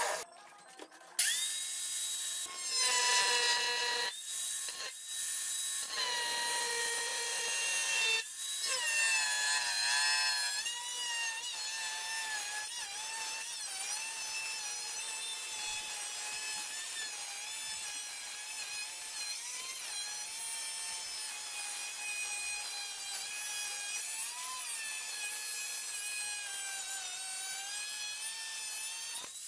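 Power cutoff tool slicing through the sheet-steel outer rocker panel of a 1958 MGA: a high motor whine that stops briefly, spins back up about a second in, and drops in pitch as the disc bites into the metal, then runs on through a long cut.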